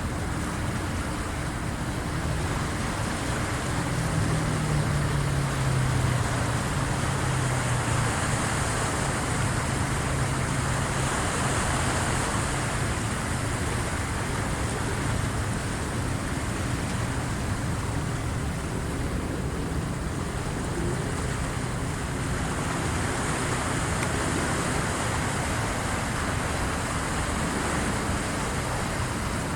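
Waves of the incoming high tide washing in, a steady rushing that slowly swells and eases. A low engine drone sits under it for roughly the first half.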